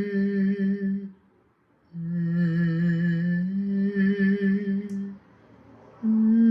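A man's voice humming a slow, wordless sound-healing melody of only a few notes. It holds long, steady notes in phrases: one ends about a second in, the next runs from about two seconds to five, and a higher note starts near the end, with short breath pauses between them.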